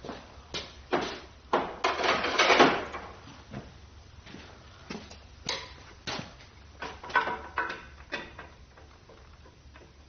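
Metal engine parts knocking, clunking and scraping as the Ford 351 Windsor block is worked on to pull the camshaft. A dozen or so sharp knocks, with a longer scraping clatter about two to three seconds in.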